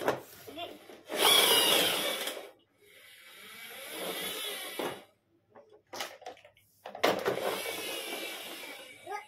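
A toy car whirring in three bursts of one to two seconds each, with a wavering whine in the whir, as it is pushed or run along the floor.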